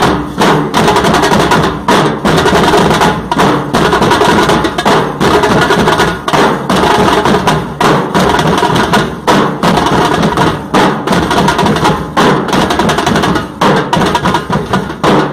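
Nasik dhol band drumming: many large double-headed dhols beaten with sticks in a loud, fast, dense rhythm, with short breaks in the beat.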